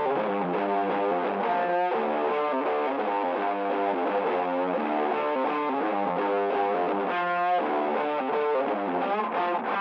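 Instrumental background music: a steady run of pitched notes at an even level.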